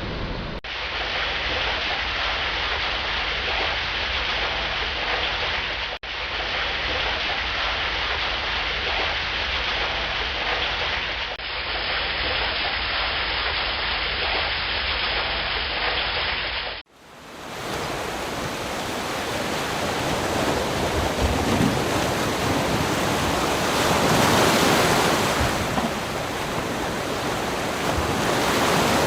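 Waterfall: a steady rush of falling water, with no distinct tones. It is made of several recordings joined by abrupt cuts about half a second, six, eleven and seventeen seconds in; the last recording is fuller and swells to its loudest about twenty-four seconds in.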